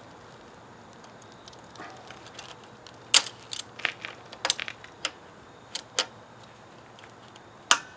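Sharp, irregular metal clicks and clinks of vise grips working a broken exhaust manifold stud back and forth in the cylinder head, the stud just starting to turn. They begin about three seconds in and come in scattered groups.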